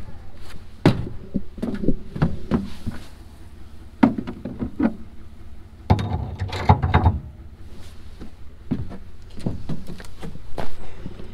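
Irregular knocks and metallic clunks from handling gear in a pickup truck bed, including a gooseneck hitch ball being worked at its socket in the bed floor, with a busier cluster of clunks about six to seven seconds in, over a low steady rumble.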